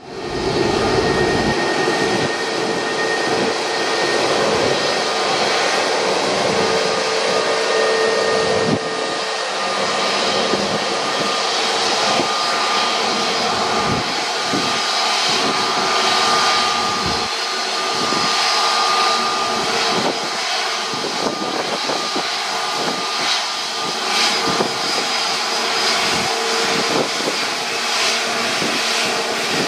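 Jet aircraft engines running: a continuous rushing noise with a steady high whine held throughout.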